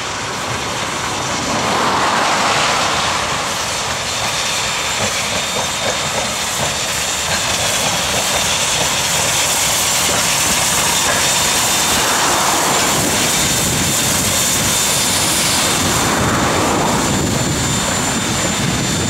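NZR Ab class 4-6-2 steam locomotive passing close under steam with its train of carriages, a steady rush of exhaust and wheel-on-rail noise that swells about two seconds in and holds.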